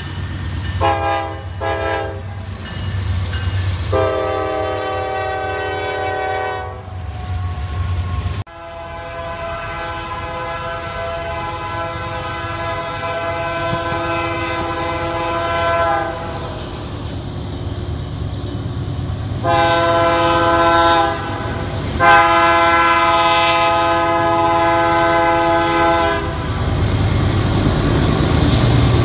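Canadian Pacific diesel locomotive horn sounding a chord as the freight train approaches: one long blast, a short blast, then another long blast, with the rumble of the train growing near the end. Before that, a few short horn chords and a longer one end in an abrupt cut about eight seconds in.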